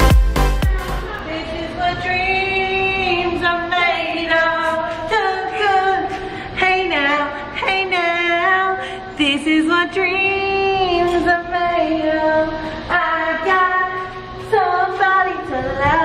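Female voices singing a melody, with long held notes that slide between pitches. A dance-music beat dies away in the first second.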